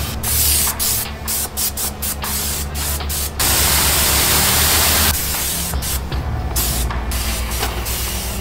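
Spray hiss in a string of short on-off bursts, with one long continuous burst of nearly two seconds midway, over the steady pulsing hum of a running motor or pump.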